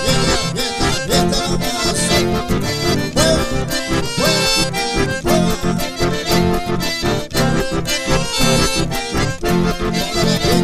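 Two accordions playing an instrumental chamamé together over a strummed acoustic guitar, with a steady dance rhythm.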